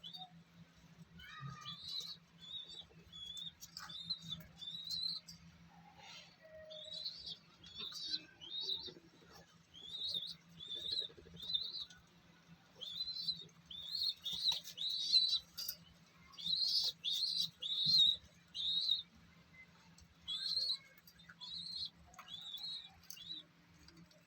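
Bird chirping: short, high-pitched chirps repeated in quick clusters with brief pauses between, over a faint steady low hum.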